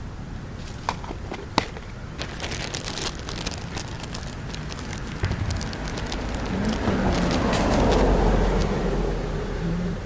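Close clicks and crackling from food being handled near the microphone, then a car driving past, its noise swelling to a peak and fading over about three seconds in the second half.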